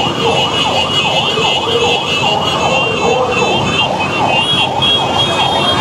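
Vehicle siren on a fast yelp, its pitch sweeping up and down about four times a second without a break.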